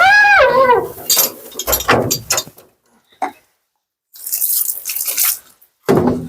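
A Siberian husky's short woo, rising then falling in pitch, in the first second, followed by water splashing, dripping and a hissing burst of spray from a bath sprayer.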